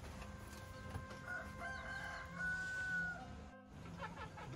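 A rooster crowing: one long crow starting about a second in and held for about two seconds.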